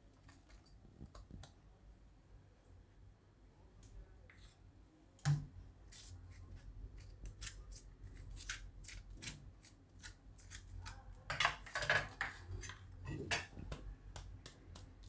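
Quiet scraping and clicking of a metal spoon spreading butter over stacked jowar rotlas (sorghum flatbreads), with one sharp knock about five seconds in and a denser run of scrapes and clicks around twelve seconds.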